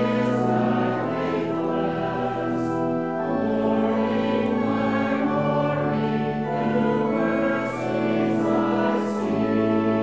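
Slow hymn music: long held chords that change slowly, with voices singing together.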